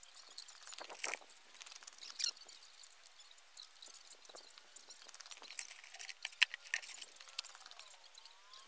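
Faint, rapid, irregular high-pitched chirping and clicking of small birds, with a few light clinks.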